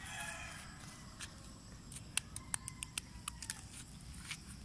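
Faint, irregular small clicks and scrapes of a yellow plastic toy shovel digging in gritty, gravelly dirt, coming fastest in a quick run in the middle.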